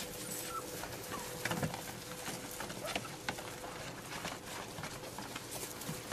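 Puppies scrabbling about in a plastic kiddie pool: irregular light taps and scratches of claws on the plastic, over a faint steady hum.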